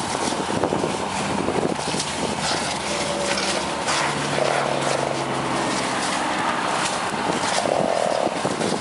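Steady rushing, hissing noise as water is put onto a burning car and turns to billowing steam, with the low hum of an engine running underneath.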